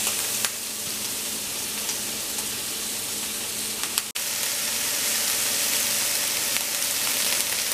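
Sliced bell peppers sizzling steadily in hot olive oil in a stainless steel skillet, with faint crackles. The sound drops out for an instant about four seconds in.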